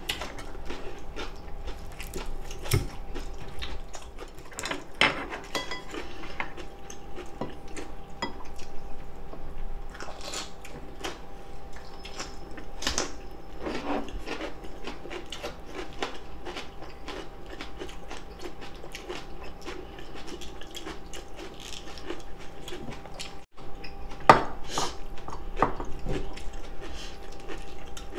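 Close-miked eating: chewing and biting of food, with chopsticks clicking against plates and a stoneware pot, over a faint steady hum. A sharp clink about 24 seconds in is the loudest sound.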